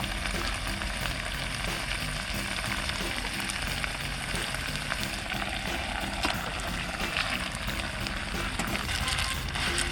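Steady sizzling hiss, like food frying, with quiet background music underneath.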